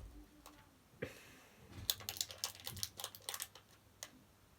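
Light, quick clicking and tapping of small hard pieces being handled: a single click about a second in, then a rapid run of clicks lasting about a second and a half.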